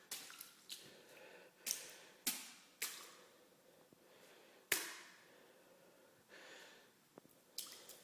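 Irregular footsteps squishing through carpet soaked by several inches of standing floodwater, about half a dozen sharp steps.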